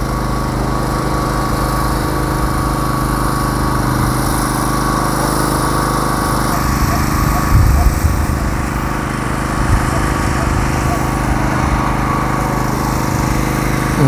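A small engine or motor running steadily, an even hum that holds one pitch throughout, with a brief louder low burst a little past halfway.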